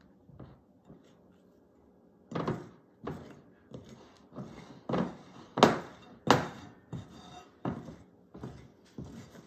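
Potato masher thunking repeatedly against the bottom of a glass mixing bowl as it presses down on stiff, crumbly cookie dough that is short of liquid. About a dozen strokes at an uneven pace of one every half second or so, starting about two seconds in, the loudest near the middle.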